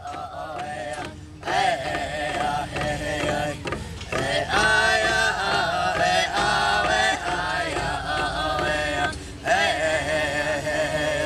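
Powwow drum group singing a Grass Song: a high, wavering chant from several voices, with beaters striking a large hide powwow drum. The singing breaks briefly about a second in and again near the end.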